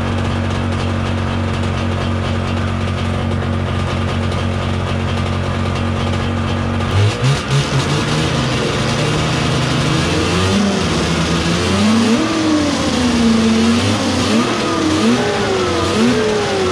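1990 Yamaha V-Max 540 snowmobile's two-stroke engine idling steadily, then blipped a few times about seven seconds in and revved up and down repeatedly. It is running poorly, only intermittently firing on both cylinders, on old spark plugs.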